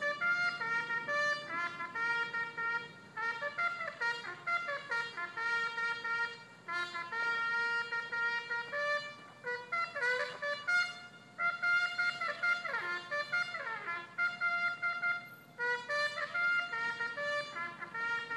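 Bugle call sounding as the flag is lowered: a run of clear brass notes, some quick and some held, with short pauses between phrases.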